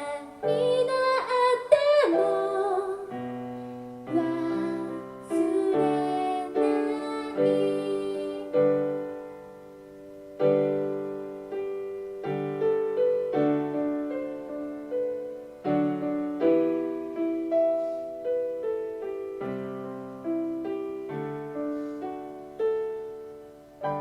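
Piano playing the slow outro of a pop ballad: a female voice holds the last sung note with vibrato for the first few seconds, then single piano notes and chords are struck one after another, each ringing and fading, with a last chord near the end.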